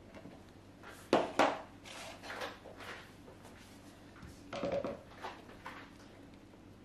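Plastic pouring jugs knocking and clattering against the soap mould and worktop while soap batter is poured: two sharp knocks about a second in, light scattered clatter, and a second cluster of knocks near five seconds.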